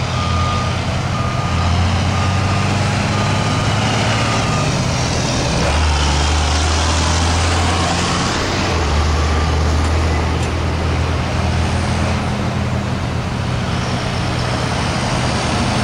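Snowplough vehicle's engine running steadily under load, with a reversing alarm beeping about twice a second that stops about a third of the way in.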